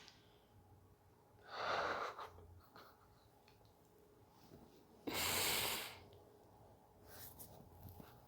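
A person's breathing: two audible breaths, one about a second and a half in and a sharper, louder one about five seconds in.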